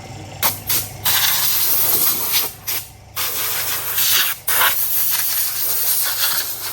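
A loud hiss, like a jet of air or spray, starting about half a second in and cut into several bursts by short breaks.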